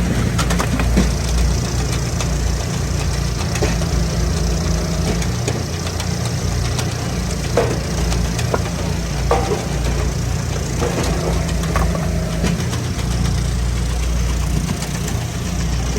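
Gas engine of a hydraulic log splitter running steadily, with a few sharp knocks over it.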